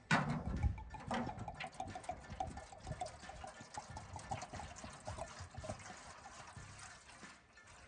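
Liquor poured from a bottle into a disposable aluminium foil pan: a splashing stream with rapid glugs from the bottle neck, tapering off near the end.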